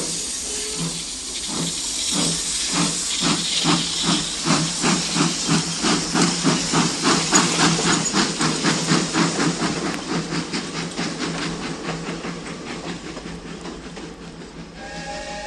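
Steam locomotive pulling away: hissing steam and exhaust chuffs that start about a second apart and quicken to a rapid, even beat, then fade as it draws off. A steam whistle sounds near the end.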